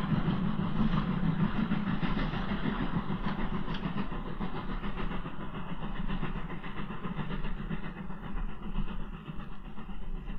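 German-built 2-10-0 steam locomotive running light away from the recorder, its rapid exhaust beats and rail noise gradually fading and growing duller.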